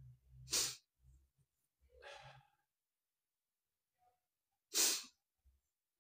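A man with a congested nose sniffing or snorting hard twice, about half a second in and again near the end, with a softer breath around two seconds.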